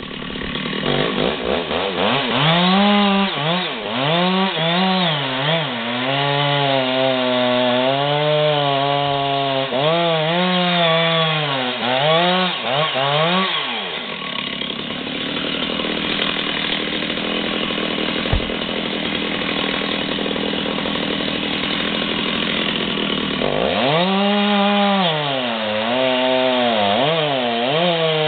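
Chainsaw engine revving up and down repeatedly as it cuts into wood. About halfway through, it drops to a steadier, lower engine sound for roughly ten seconds, with a single sharp click. Then the saw revs and cuts again near the end.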